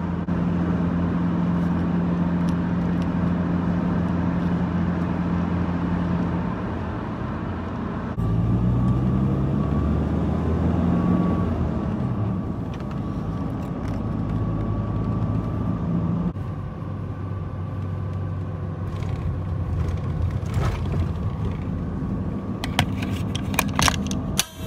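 Engine and road noise heard from inside a moving car: a steady low hum, with the engine note climbing as the car speeds up about a third of the way in. A few sharp clicks near the end.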